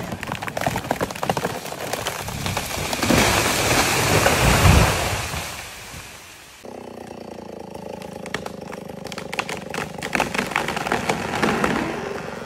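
A large tree coming down: branches cracking and snapping, swelling into a loud crash that then fades. After an abrupt cut about halfway through, an engine runs steadily with scattered clicks.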